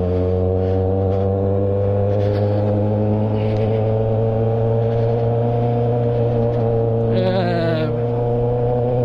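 Kawasaki Z800 inline-four engine running at steady, moderate revs while the motorcycle is ridden, with a brief change in the engine note about seven seconds in.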